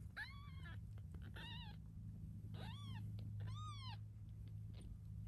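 Newborn kittens mewing: four short, high-pitched mews, each rising and falling in pitch, over a low, steady purr from the mother cat.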